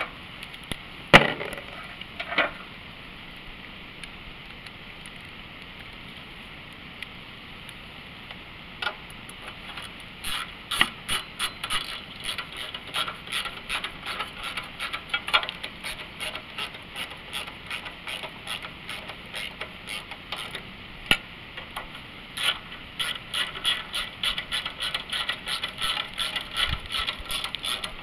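Ratchet wrench clicking in quick runs as it tightens the small bolts of an engine's air filter housing, after a few sharp knocks near the start.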